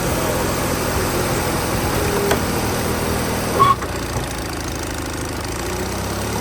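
Gas engine running steadily, most likely the one driving a log splitter, with a short sharp knock a little past halfway through.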